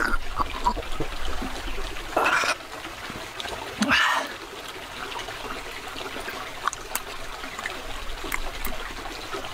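Steady trickle of running water, with two short slurping or chewing sounds of someone eating about two and four seconds in, and small mouth clicks between.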